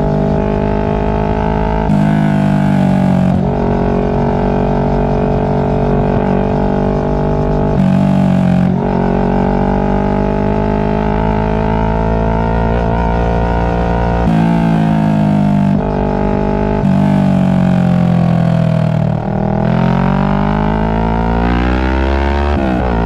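Kawasaki Ninja 650 parallel-twin engine running through a Two Brothers aftermarket exhaust while riding, with a steady drone. The throttle opens and closes several times, and near the end the pitch dips and then climbs as the bike accelerates.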